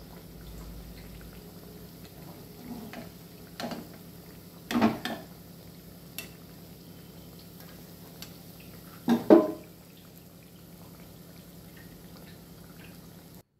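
Oil sizzling steadily as sesame-coated anarsa deep-fry in a kadhai. A few brief louder scrapes and knocks of a steel slotted spoon in the pan come about four and five seconds in and again after nine seconds. The sound cuts off abruptly just before the end.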